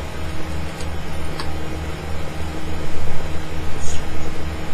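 Steady low throbbing hum with hiss: background noise on a Skype call's audio line, with a couple of faint clicks.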